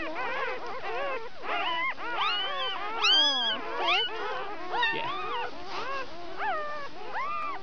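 A litter of newborn sled-dog puppies, under a week old, crying and squealing all at once: many high, rising-and-falling cries overlapping without pause, the loudest about three seconds in.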